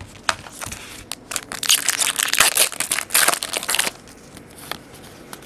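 Foil trading-card pack wrapper crinkling and crackling as it is torn open and crumpled, loudest for about two seconds in the middle, with a few sharp clicks before and after.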